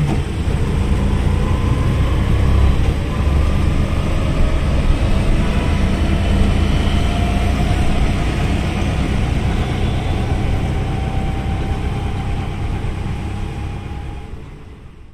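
Street traffic with vehicle engines running and idling in a steady low rumble. It fades out over the last few seconds.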